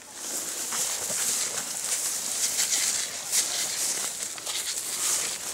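Footsteps crunching and rustling through dry leaves and brush on the forest floor, an irregular run of crackles that starts suddenly.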